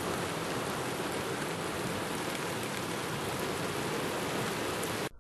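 Heavy downpour heard from a vehicle: a steady, dense hiss of rain that cuts off suddenly near the end.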